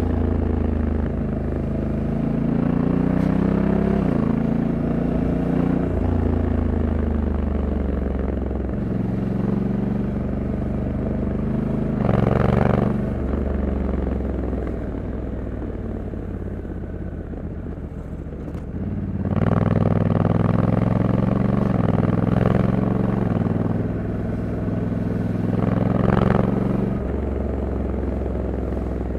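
Honda Africa Twin 1100 DCT's parallel-twin engine running under way, its note stepping up and down several times as the dual-clutch gearbox changes gear. A brief rush of noise comes about twelve seconds in and again about twenty-six seconds in.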